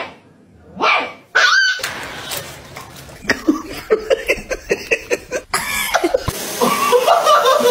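A dog barking and yipping in short calls.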